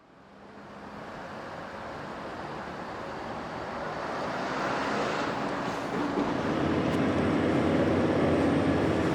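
A train approaching, its running noise growing steadily louder, with a faint rising whine near the end.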